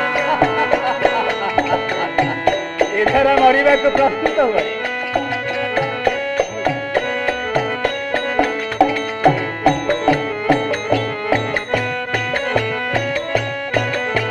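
Traditional accompaniment music for a shadow-puppet play: a hand drum played in a fast, steady rhythm, its deep strokes bending down in pitch, under a held melodic line.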